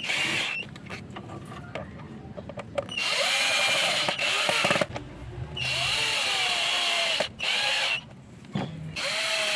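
Electric drill-driver driving the screws back into a scooter's air cleaner box cover, running in several short bursts of one to two seconds with pauses between them, its motor pitch rising at the start of each run.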